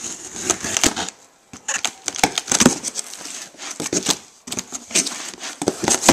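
Cardboard shipping box and its packing being opened and handled: irregular crinkling, scraping and small knocks of cardboard.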